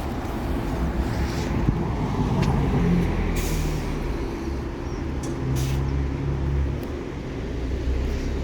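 Diesel bus engine running close by, with two short hisses of compressed air from its air brakes a few seconds in.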